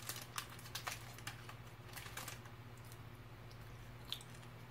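Faint, irregular light clicks, a few at a time, over a steady low hum.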